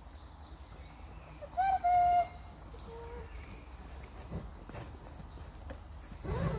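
A bird calls once loudly about one and a half seconds in: a short rising note, then a held, steady note. A fainter, lower note follows about a second later, over faint high chirping in the background.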